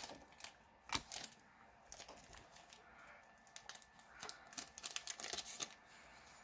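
Faint handling of a foil booster pack and trading cards: soft crinkles and light clicks, with a sharper click about a second in and a run of small ticks around five seconds.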